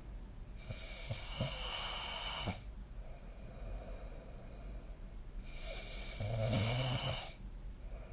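A sleeping person snoring: two snores, each about two seconds long and roughly five seconds apart, the second one louder.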